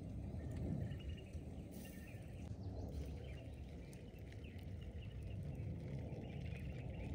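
Small birds chirping on and off over a low, steady outdoor rumble.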